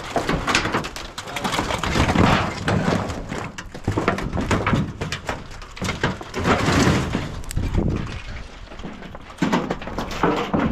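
Corrugated tin sheets scraping and clattering as they are pulled back and folded over off a pile, with irregular metallic knocks and rasps.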